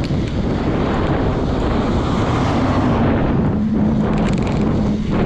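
Wind rushing over the microphone of a moving bicycle, steady throughout, with a low steady hum coming in about halfway through.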